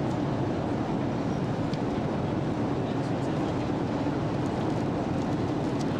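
Airliner cabin noise in flight: a steady, even rush of engine and airflow noise.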